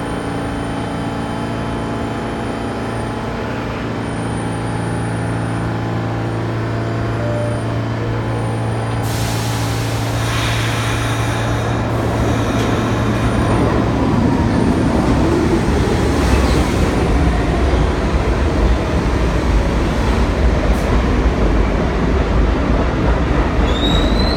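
A New York City subway train at a station platform. A steady electric hum gives way, about nine seconds in, to a rush of air, then a rumble of wheels on rails that grows louder through the rest, with a brief rising squeal near the end.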